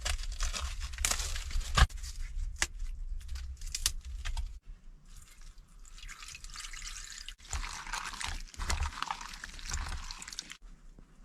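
Cabbage being added to a pot of noodles cooking on a charcoal heater: liquid splashing and bubbling, with a few sharp clicks of handling.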